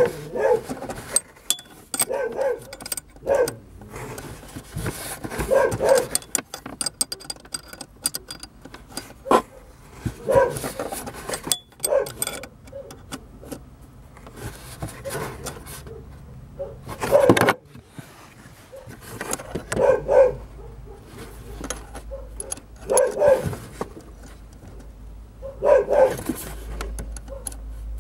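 Open-end wrench clicking and clinking on the parking-brake cable adjuster nut as it is turned to take up slack in the handbrake cables. A dog barks in short bursts every few seconds, and the barks are the loudest sound.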